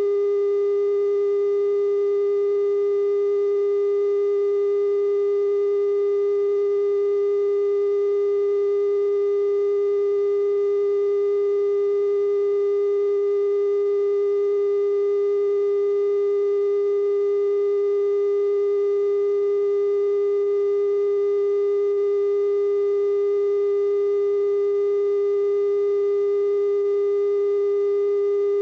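Steady 420 Hz television test tone sent with color bars, the off-air bars-and-tone signal, holding one unchanging pitch with faint overtones above it.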